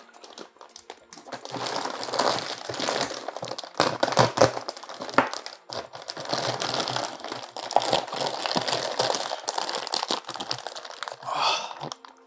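Plastic fish-shipping bag crinkling and rustling as it is handled and opened over a tub, with many small sharp crackles.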